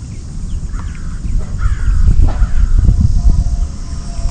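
Several harsh, crow-like bird calls, each bending down in pitch, over a steady low rumble.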